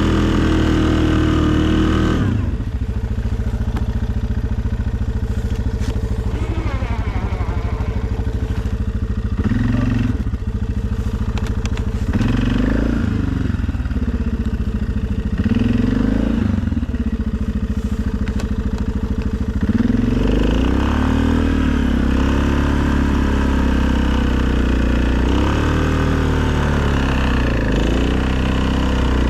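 2020 Suzuki KingQuad ATV's single-cylinder engine running. About two seconds in it drops to a lower, idling speed, rises and falls in several short revs, and from about twenty seconds in runs steadily at a higher speed again.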